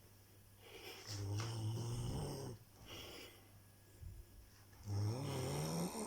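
Snoring: two long snores, each about a second and a half, with a low buzzing tone that rises slightly in pitch, and quieter breathing between them.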